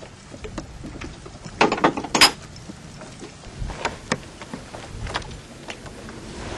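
Gear being handled aboard a wooden sailing yacht: a quick cluster of clattering knocks about two seconds in, then a few lighter taps.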